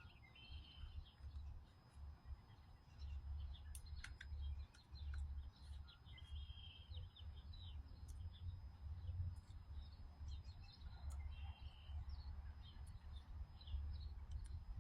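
Small birds chirping faintly in short, scattered calls, over a low, uneven rumble and a few light clicks.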